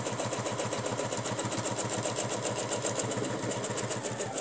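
Domestic sewing machine running at a steady speed, stitching free-motion along a quilting ruler, its needle going up and down in a quick, even rhythm.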